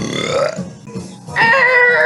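A person burping twice: a short, rough burp right at the start and a longer burp holding a steady pitch about one and a half seconds in.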